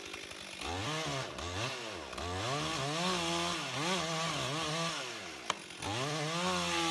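Chainsaw cutting into a large tree trunk. Its engine comes in about half a second in, then rises and dips in pitch again and again as it bogs in the cut and picks up. It drops off briefly about five seconds in, then resumes.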